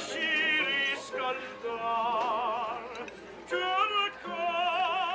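A man singing in an operatic style, held notes with strong vibrato in several phrases broken by short pauses.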